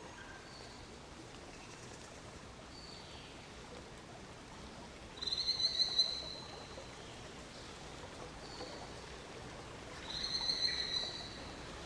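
Steady soft hiss of rain with a songbird calling over it: a few short high whistles, and two louder trilled phrases about five and ten seconds in.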